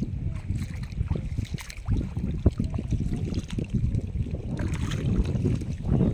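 Low wind rumble on the microphone with sea water sloshing and a few small knocks.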